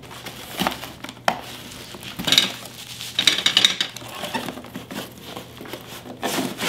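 Cardboard shipping box being opened and unpacked by hand: flaps bending and scraping, with rustling and irregular knocks as the box is handled on the counter.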